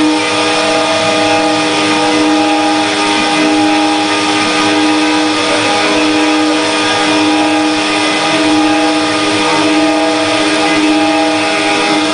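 CNC wood router running a carving program: its spindle motor gives a steady hum with a constant tone, over the hiss of the machine at work.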